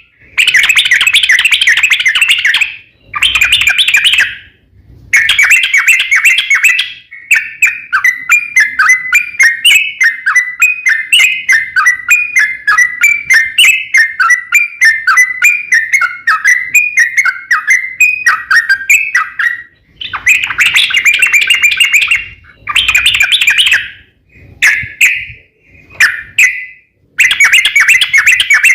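Yellow-vented bulbul (trucukan) singing loudly: bursts of fast chattering phrases broken by short pauses, with a long run of quick repeated, wavering notes through the middle.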